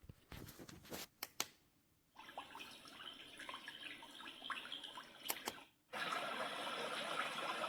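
A few button clicks, then a built-in nature sound of running, dripping water playing from the LIORQUE sunrise alarm clock's small speaker. Near six seconds in it cuts out briefly and switches to a louder, denser track, as when the clock steps to its next natural sound.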